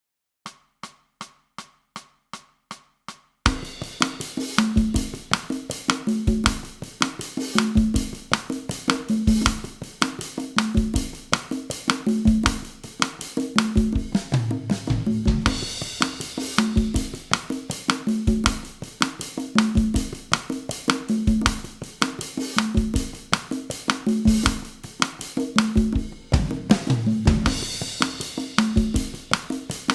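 Bossa nova groove at 160 bpm on drum kit and congas, opened by eight even count-in clicks. The kit and congas come in about three and a half seconds in and keep up a steady repeating pattern.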